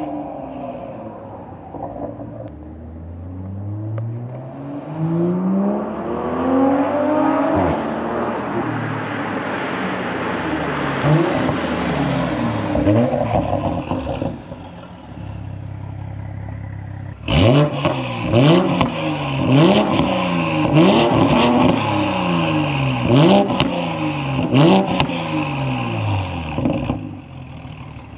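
MK5 Toyota Supra with an HKS titanium exhaust and catless downpipe accelerating hard through several gears, its pitch climbing and then dropping at each shift. After a steadier, quieter stretch in the middle comes a fast series of sharp revs, each with a sharp crack at its peak.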